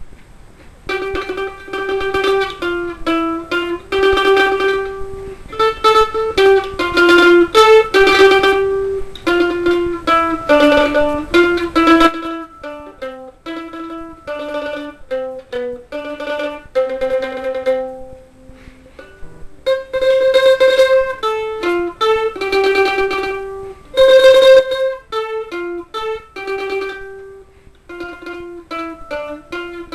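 Instrumental music: a melody on a plucked string instrument played with fast tremolo picking. The fuller backing drops away about twelve seconds in, leaving a sparser melody, and the fuller playing returns at about twenty seconds.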